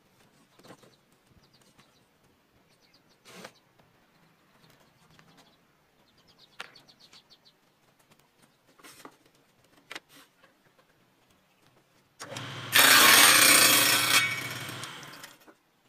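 Homemade table saw ripping a thin strip of wood: the saw starts up about twelve seconds in, a loud cut follows, and the sound fades and stops shortly before the end. Before it, only a few light clicks and knocks of wood pieces being handled.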